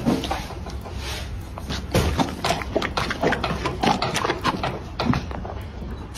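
Horse mouthing and chewing an ice pop right at the microphone: irregular wet smacks and clicks of its lips and teeth, several a second.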